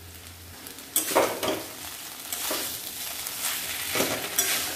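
A spoon stirring and scraping grated papaya, potato and chickpeas in a metal kadai while they sizzle. The mixture is frying dry with no water added. The stirring starts about a second in, and the strokes repeat over a steady sizzle.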